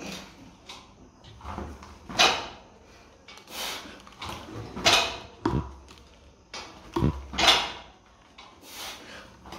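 Loaded barbell deadlifted for reps: the plates knock and clank each time the bar comes down to the floor. There are four sharp, loud knocks about two and a half seconds apart, with lighter clicks between them.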